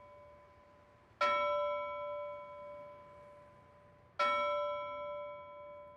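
A bell-like chime struck twice, about three seconds apart, each stroke ringing with several clear tones and fading slowly.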